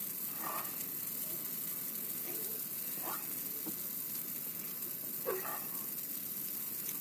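A small evergreen tree of holiday greens burning in a tall blaze: a steady hissing rush of flames.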